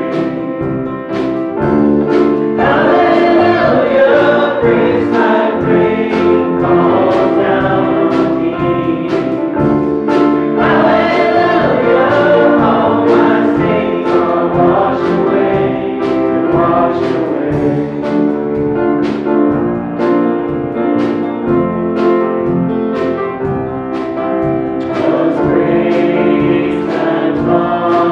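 A live church praise band: a man and a woman singing a worship song into microphones, over a drum kit keeping a steady beat and a guitar.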